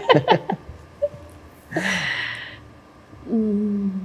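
A person's voice: the last few words of speech, then a short breathy exclamation about two seconds in and a held, hummed vocal sound near the end.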